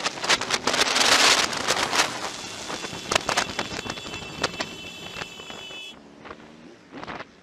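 Motorcycle riding in traffic past a truck: wind buffeting the microphone over engine and road noise, with a high steady whine for a few seconds midway. The noise drops away near the end.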